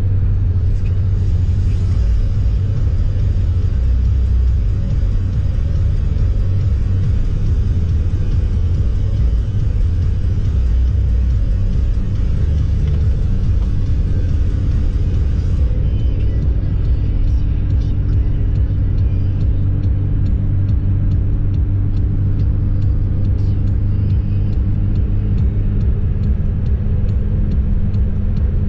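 Car driving at steady speed, heard from inside the cabin: a steady low rumble of engine and road noise. A steady hum joins about halfway through.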